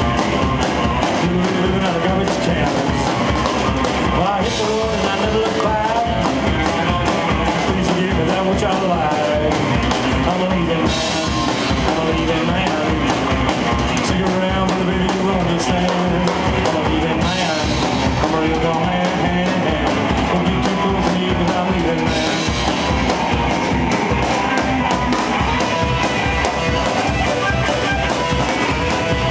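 Live rock and roll band playing loudly: electric guitar, upright bass and drum kit, with a man singing.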